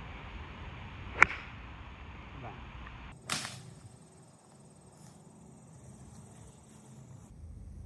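Golf club striking a ball: one sharp click about a second in, then a second strike with a short swish about two seconds later.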